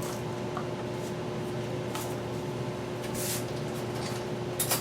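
Spoon stirring a sugar, milk and butter mixture in a mixing bowl: a few soft scrapes, then clinks against the bowl near the end, over a steady electrical hum.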